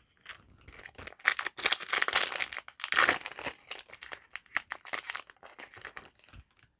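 Foil wrapper of a Yu-Gi-Oh! booster pack being torn open and crinkled by hand: a dense crackling rustle that starts about a second in and thins out near the end.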